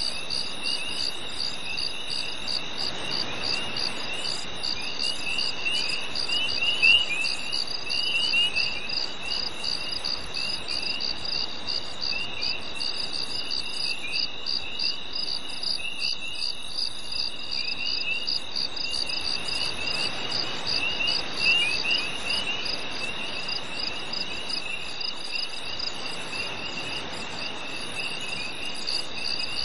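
Crickets and other insects chirping at night in a steady chorus: a fast, even pulsing high chirp over a constant high buzz, with irregular trilling chirps a little lower. Underneath is a faint rushing haze that swells twice.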